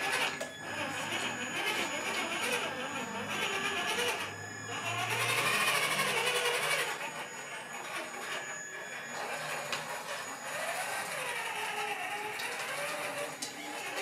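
Electric motor and gears of a Traxxas TRX-4 Mercedes G 500 RC scale crawler whirring as it is driven, the pitch rising and falling with the throttle.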